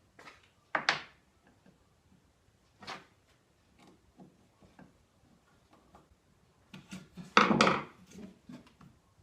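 Baltic birch drawer and metal drawer slide being handled while the slide is screwed on by hand: wooden knocks and clatters, two sharp ones about a second in and another near three seconds, small taps between, then a louder, longer scraping clatter about seven to eight seconds in.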